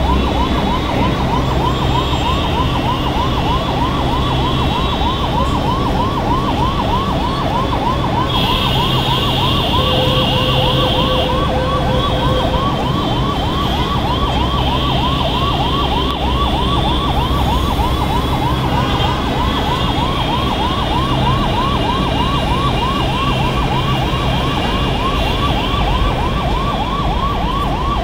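Emergency vehicle siren on a fast yelp, a rising sweep repeated about three times a second, over the steady rumble of heavy, jammed road traffic.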